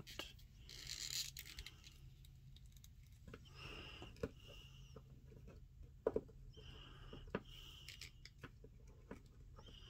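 Faint handling of a plastic action figure as its limbs are posed: soft rubbing with a few small sharp clicks, over a low steady hum.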